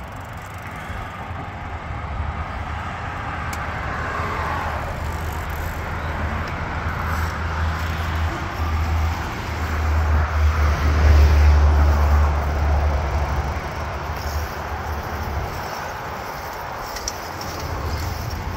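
Road traffic passing on the multi-lane road below, heard as a steady wash of noise with a low rumble that grows loudest about ten to thirteen seconds in.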